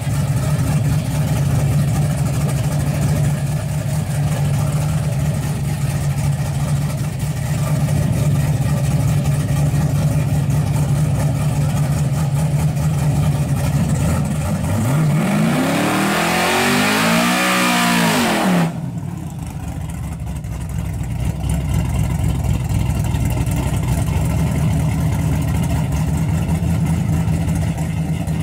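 Nitrous Chevy Silverado drag truck's engine idling with a steady low rumble. About halfway through, a louder engine revs up and back down and then cuts off abruptly, after which the idle returns.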